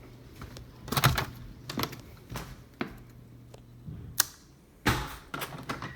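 Irregular sharp clicks and knocks, about a dozen spread unevenly, over a faint steady low hum.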